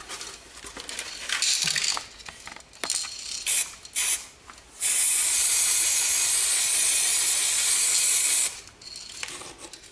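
Aerosol spray-paint can spraying onto the concrete wall of a drainage pipe: a few short spurts, then one steady hiss of about three and a half seconds as an arrow is painted.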